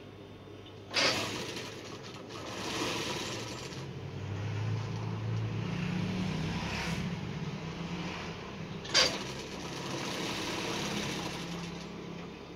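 Mattress tape-edge sewing machine running as it stitches binding tape around a mattress edge, its motor hum swelling through the middle. Two sharp clacks, about a second in and again near the end.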